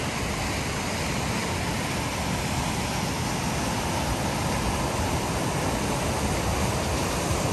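Deschutes River whitewater rushing steadily over rapids.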